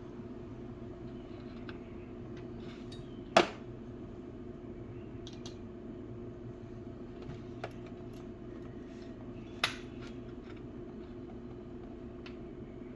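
Metal hand tools clinking and tapping against metal as wrenches are tried on a small fastener: two sharp clinks, one about three and a half seconds in and one near ten seconds, with a few faint taps, over a steady low hum.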